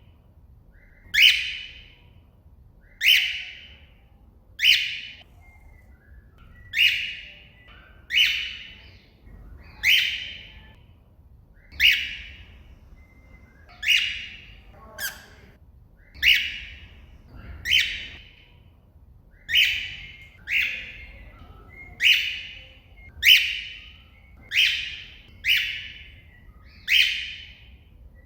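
Cockatiel giving repeated contact calls, one short, shrill call about every second and a half, each sliding down in pitch. This is the call a cockatiel uses to call out to another bird.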